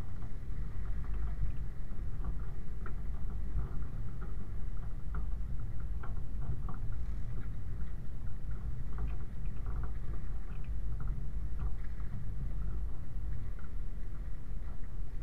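Land Rover 90 driving slowly over a wet, rocky off-road track, heard from a camera mounted on its rear: a steady low rumble of engine and drivetrain, with frequent small irregular clicks and knocks as the vehicle jolts over stones and through puddles.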